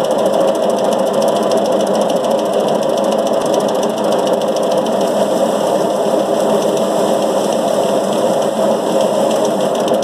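Paddy thresher running steadily: a fast, even rattle and hum from its spinning drum as bundles of rice stalks are held against it to strip the grain.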